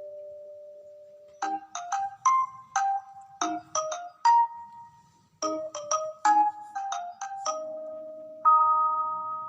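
Background music: a light melody of struck, bell-like mallet notes, marimba or glockenspiel in sound. A held note fades out, a run of quick notes follows, there is a short pause about halfway, and another run ends on a sustained chord near the end.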